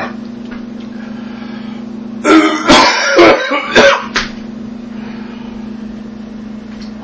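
A man coughing and clearing his throat in a cluster of strained, pitched bursts lasting about two seconds, starting a little over two seconds in. His throat is burning from a bite of Trinidad Scorpion Butch T chili pepper. A steady low hum runs underneath.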